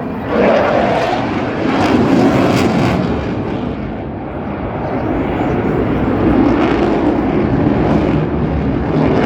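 Eurofighter Typhoon jet flying its display, its two EJ200 turbofan engines making a loud rushing jet noise that swells about half a second in, eases off around four seconds and builds again around six to seven seconds.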